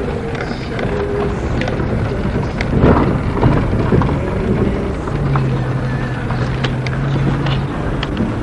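Car in motion heard from inside the cabin: steady engine and road noise, a little louder around three to four seconds in, with a low steady hum for about two and a half seconds past the middle.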